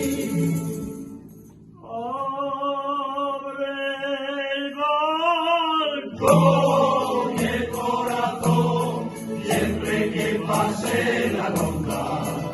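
Rondalla ensemble music: after a brief dip, a chord is held for about four seconds with a wavering pitch, then the full ensemble comes back in with a steady strummed rhythm.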